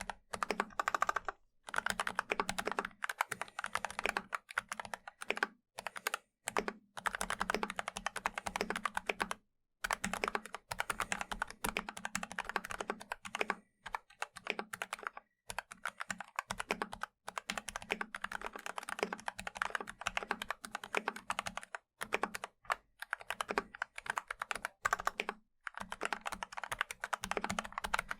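Fast typing on a mechanical keyboard with lubed and filmed Gateron Milky Black linear switches, a muted, deep clacking, in long runs broken by brief pauses.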